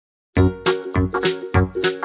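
Upbeat background music with a steady beat, starting about a third of a second in.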